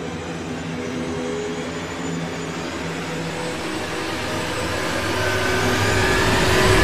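A rushing, roaring swell with a low hum under it, growing steadily louder: a build-up sound effect laid under the closing end card.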